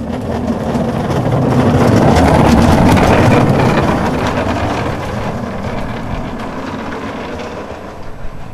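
Engineless soap box cart rolling down an asphalt road, its wheels making a loud, even rolling noise. The noise swells as the cart passes close, about two to three seconds in, then slowly fades as it runs on down the hill.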